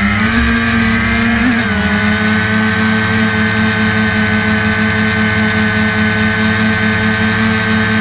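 Small drone's electric motors and propellers humming, heard from the drone's own camera. The pitch shifts about a second and a half in, then holds steady.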